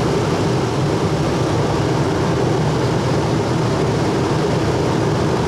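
A 13,500 BTU rooftop camper air conditioner running overhead, just switched on: a loud, steady, even drone with a low hum.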